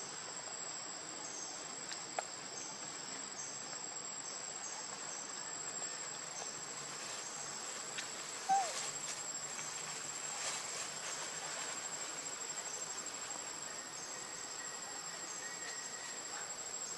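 Steady insect chorus: a continuous shrill, high-pitched tone with a fainter chirp repeating about every two-thirds of a second beneath it. A brief, louder squeak about halfway through.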